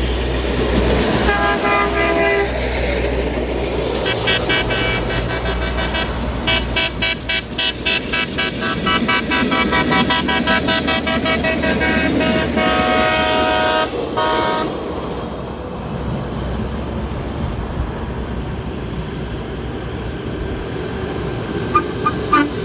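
Air horns on track-gang maintenance vehicles sounding: a short blast about a second in, then several overlapping horns blowing together from about four seconds, in quick repeated toots midway, cutting off suddenly about fourteen seconds in. Steady vehicle noise follows, and short horn toots start again near the end.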